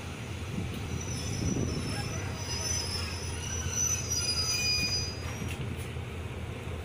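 Passenger train's steel wheels squealing on the rails, a high, wavering squeal that fades out near the end, over the steady low rumble of the carriage, heard from inside the carriage.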